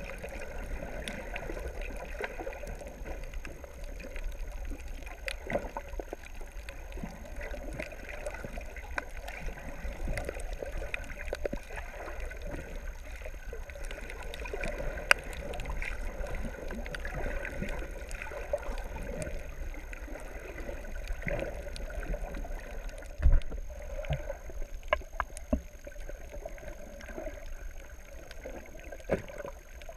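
Muffled underwater sound picked up by a camera below the surface: a steady low rumble of moving water, sprinkled with faint clicks and crackles. A few sharper clicks stand out, one about halfway and several in the last third.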